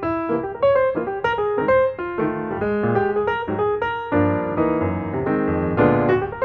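Background piano music: a steady run of quick, struck notes.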